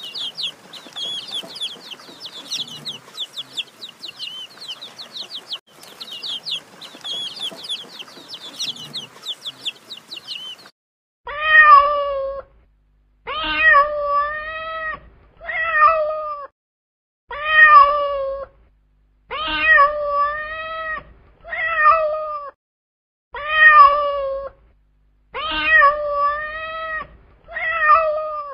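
A flock of chicks peeping rapidly and high for about the first ten seconds, then a cat meowing over and over: about nine drawn-out meows roughly two seconds apart.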